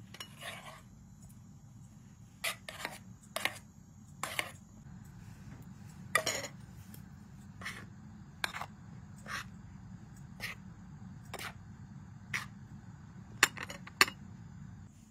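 Metal spoon clinking and knocking against steel bowls in a run of irregular sharp clinks, the two loudest near the end, over a steady low hum.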